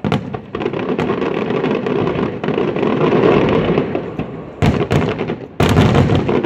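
Aerial fireworks display: a dense, continuous crackling of bursting shells. About four and a half seconds in it builds into a rapid barrage of loud bangs.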